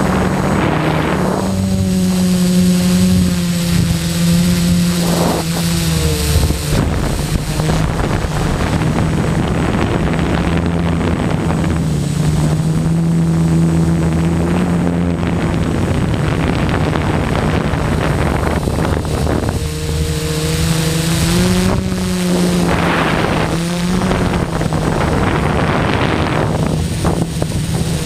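Quadcopter's electric motors and propellers buzzing steadily, heard from the camera on the craft, the pitch drifting up and down as the throttle is adjusted. Swells of rushing wind noise come and go, strongest near the start, around five seconds in and again late on.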